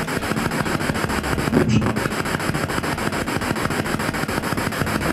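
Ghost-hunting spirit box sweeping through radio stations: a loud hiss of radio static chopped into fast, even pulses, about ten a second.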